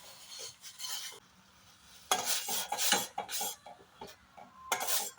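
A spoon stirring a pan of masala tea just after milk has been added: a few light taps in the first second, then a quick run of scraping strokes against the pan about two seconds in, and again near the end.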